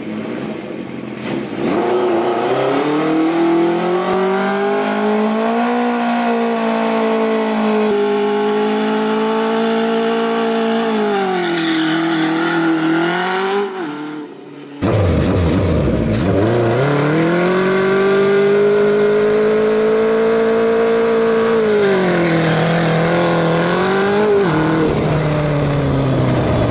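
A 1979 Suzuki GS1000 cafe racer's air-cooled inline-four engine revs up, holds at high revs for several seconds, then drops back, as in a rolling burnout. This happens twice, split by a sudden cut about halfway. The second pass is heard from a camera mounted on the bike.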